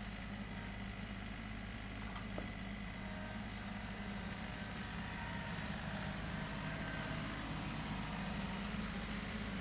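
Tractor engine running steadily, with a couple of faint clicks about two seconds in.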